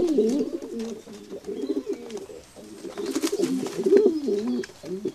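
Several pigeons cooing: low, wavering coos that overlap almost without a break.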